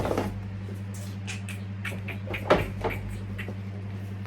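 Shoe box and packaging being handled: scattered rustles and light clicks, with one louder knock about two and a half seconds in, over a steady low hum.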